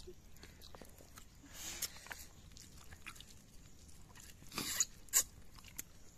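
A person eating rice mixed with goat leg soup by hand: soft mixing of wet rice and mouth sounds, with a few short, louder slurping smacks about four and a half and five seconds in.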